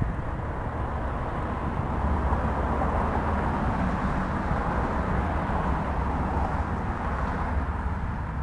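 Road traffic driving over a railroad grade crossing: a steady rush of car tyres and engines that swells a little about two seconds in, over a constant low rumble.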